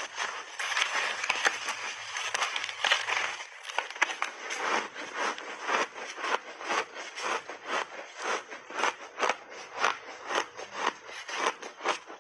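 Refrozen layered block ice crunching between teeth, close to the microphone: dense cracking from a big bite for the first three seconds or so, then steady chewing crunches about three a second.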